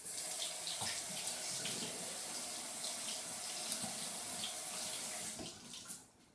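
Sink tap running steadily, turned off near the end.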